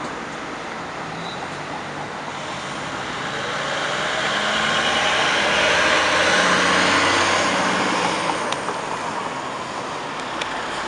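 E-One fire pumper driving past close by with no siren. Its diesel engine and tyre noise swell to a peak about halfway through, then ease off as it turns away.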